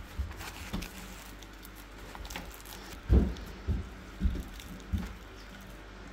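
Hands tearing apart a flaky, layered fəsəli flatbread, its pastry layers crackling and rustling as they pull apart. There are four soft bumps of handling in the second half.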